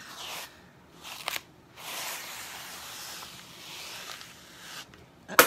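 Sticky plastic stencil transfer crackling and rustling as it is handled and peeled away from a terry towel, with a sharp snap of the sheet near the end.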